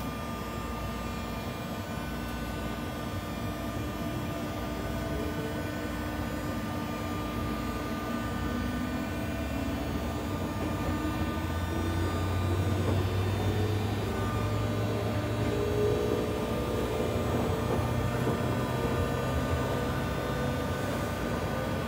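JR West 201 series electric train accelerating from a stop, heard inside the car: the armature chopper control gives a steady whine of several fixed tones, while motor tones rise in pitch as the train picks up speed and the sound grows gradually louder.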